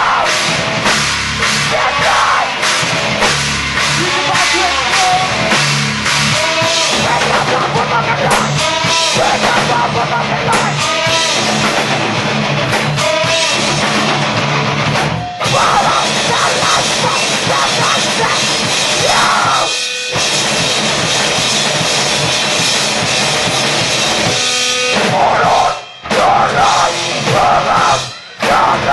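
A loud rock band playing live, with a pounding drum kit and heavy, dense guitars. The band cuts out abruptly for a moment a couple of times near the end.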